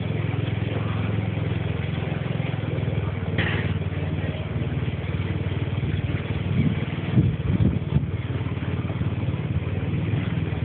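Car engine running steadily at low speed, heard from inside the cabin, with one short higher-pitched sound about a third of the way in and a few brief thumps past the middle.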